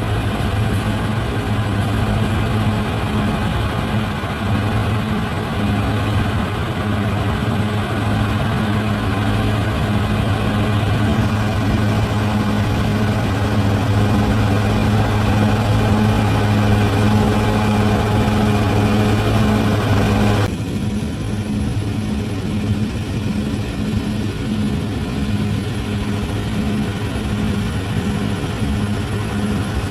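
A bulldozer's heavy diesel engine running steadily under work. About twenty seconds in, the sound changes abruptly and loses much of its higher part, while the low engine note carries on.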